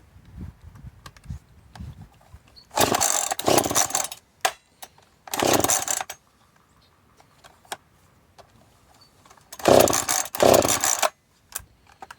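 Husqvarna 440 two-stroke chainsaw giving three short loud bursts of about a second each, with quiet between.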